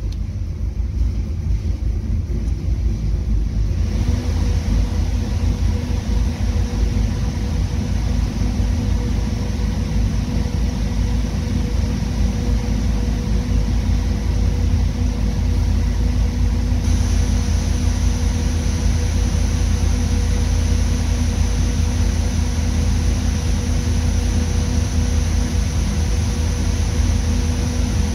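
Twin-turbo SMX ProMod race engine idling steadily on an engine dyno, a deep, even rumble. About two-thirds of the way through, a faint high-pitched whine joins it.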